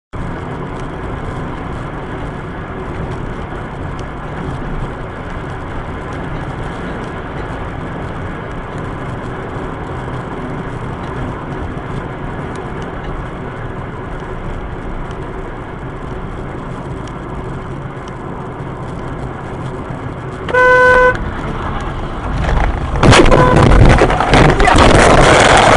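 Steady road and engine noise inside a moving car's cabin. About 20 seconds in, a car horn sounds briefly, and a couple of seconds later a loud crash of impacts, lasting about three seconds, as the car collides and its windshield shatters.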